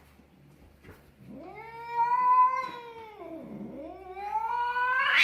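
A cat yowling in two long, drawn-out calls. The first rises and falls; the second climbs steadily and is loudest where it ends.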